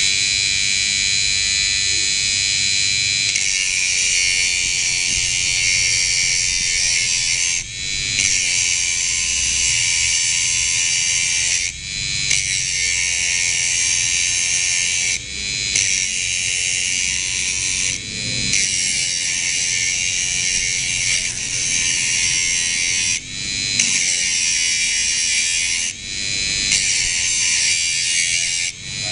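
Small high-speed electric grinder running with a steady high-pitched whine. Every few seconds the sound briefly drops and then climbs back up.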